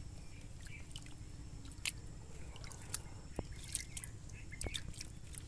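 Hands groping through shallow muddy water and wet leaves, with irregular small splashes, drips and squelches.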